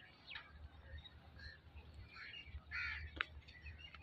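Birds calling faintly, short scattered calls with a louder one about three seconds in, over a low steady rumble.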